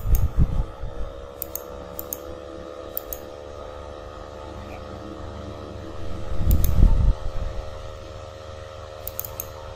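Steady hum of a fan with a few faint mouse clicks scattered through, as a computer is worked at a desk. A low thump comes just after the start and a louder one about six to seven seconds in.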